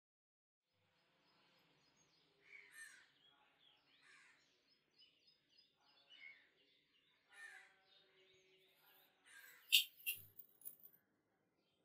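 Birds calling in the background, a string of short repeated notes among them. Near the end come a few sharp clicks, the loudest sounds, and a soft low thump.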